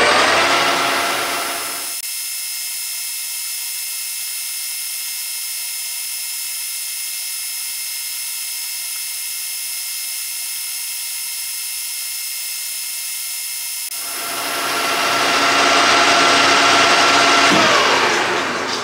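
1982 Colchester 1800 lathe running, a steady whine of several tones over a hiss, while a long 1.9 mm drill bores a tellurium copper bar. From about two seconds in until about fourteen seconds the sound goes thin and high. The fuller whine then returns, and its tones fall away near the end.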